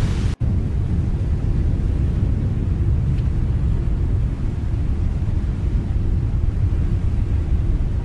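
Steady low rumble with no clear tone, cut off for an instant about half a second in.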